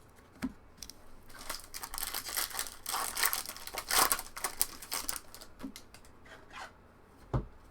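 Foil trading-card pack wrapper crinkling and tearing open, a dense crackle that swells in the middle and thins out. A few light clicks follow, with one soft knock near the end.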